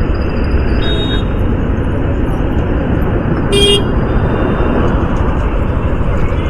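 Steady wind and road noise of a motorcycle ride through city traffic, with a brief vehicle horn toot about three and a half seconds in and a shorter high tone about a second in.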